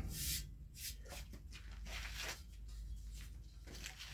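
Faint handling noises: a series of light scrapes and rustles as the top piece of a ski-lift chair is fitted into place.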